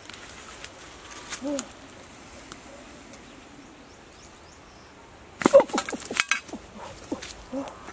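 Leaves and twigs rustling and snapping as a person pushes through dense undergrowth, in a loud crackling burst about five and a half seconds in. A few short chirps come before and after it.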